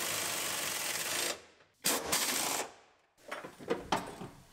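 Pneumatic impact wrench hammering a rear seat belt anchor bolt tight, in two bursts: a long one of about a second and a half, then a shorter one about two seconds in. A few light clicks follow near the end.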